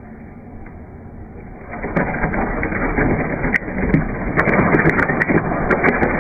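Shredder running with a low hum, then about two seconds in it starts grinding an object, with dense crackling and many sharp snaps.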